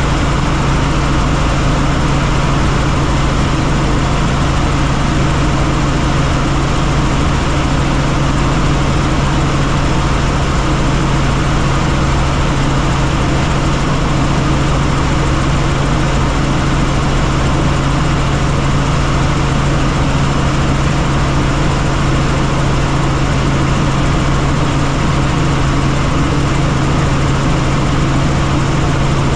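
Helicopter in flight: a loud, steady drone of engine and rotors with a constant low hum, unchanging throughout.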